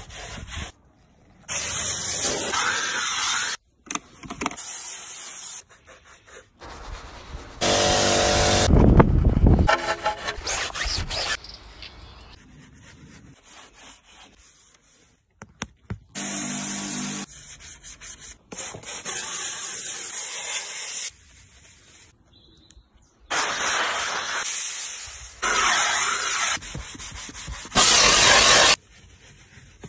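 Car-detailing cleaning sounds in short cuts. Stretches of loud, even hissing from a steam cleaner's jet and spray nozzles stop and start abruptly. Between them come quieter stretches of a detailing brush scrubbing foamed surfaces. The loudest hiss, near the end, is steam blasting over a steering wheel.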